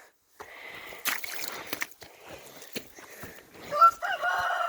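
Boots squelching and sloshing through deep, wet mud in a few irregular steps. Near the end a person's voice holds one long note.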